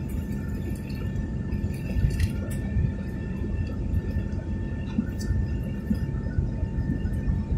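Airliner cabin noise in the climb after take-off: a steady low engine rumble with a thin steady whine above it, and a few faint clicks.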